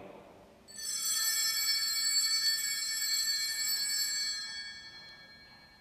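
Altar bell rung at the elevation during the consecration of the Mass: a sudden bright, high ringing with several steady tones that fades out over about four seconds.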